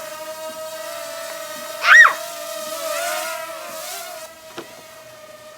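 Parrot minidrone's propellers humming steadily in flight, with a short, loud, high squeal about two seconds in.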